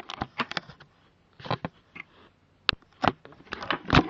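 Handling noise: a run of irregular clicks and knocks, with a sharp click near the middle and the loudest knock near the end.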